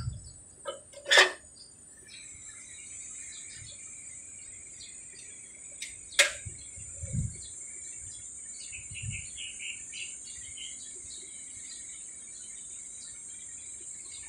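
Birds chirping over a steady high-pitched hiss, with two sharp clicks about a second in and about six seconds in, and a few soft low thumps.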